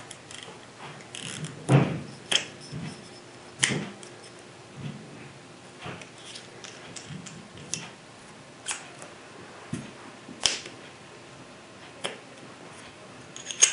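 Scattered light clicks and knocks from handling a Weaver Super Slam rifle scope, irregularly spaced at about one a second, with a few louder knocks among them.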